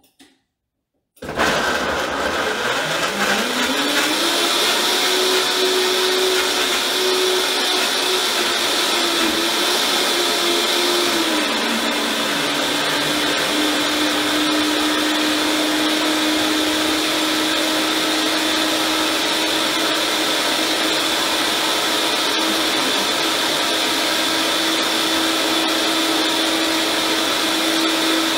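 Vitamix blender switched on about a second in, its motor pitch rising over the next few seconds as the speed is turned up from low to high. It then runs steadily, pureeing a butternut squash cream filling, with a slight drop in pitch partway through.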